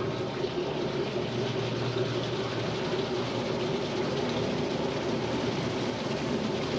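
Vintage automatic washing machine running in spin: a steady motor and drive hum over an even rushing noise from the spinning tub.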